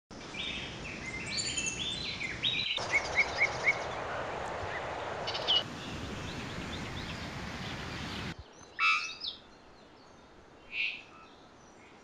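Several different birds singing and calling in turn, in short clips that cut abruptly from one to the next, over outdoor background noise. The first clip has quick stepped whistled notes, the next a run of evenly spaced chirps, and after about eight seconds it falls quieter with only a few brief calls.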